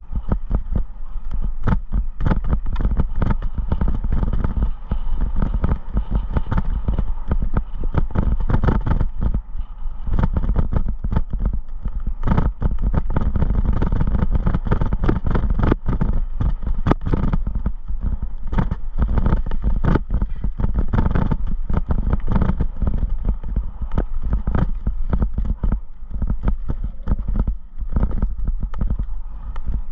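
Mountain bike descending a rough dirt singletrack: constant wind rush on the camera's microphone, with dense, irregular rattling and knocking from the bike over the bumps.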